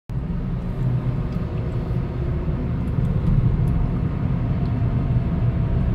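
Mazda 2 with a 1.5-litre petrol engine driving at low speed, making a steady low drone: the unexplained noise its owner hears at 10–40 km/h, which goes away when the brakes are applied and is worst when the car is hot.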